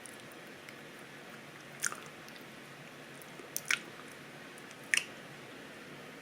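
A person chewing with the mouth open: three short, sharp smacks a second or two apart, over a faint steady hiss.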